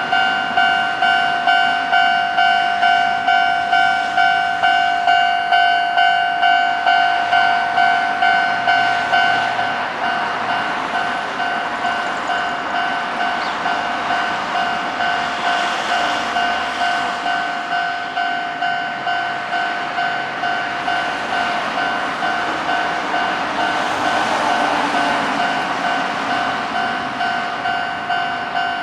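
Japanese railway level-crossing bell ringing its electronic 'kan-kan' alarm, about two strikes a second, dropping to a quieter level about ten seconds in. The rumble of a passing train swells over it in the second half.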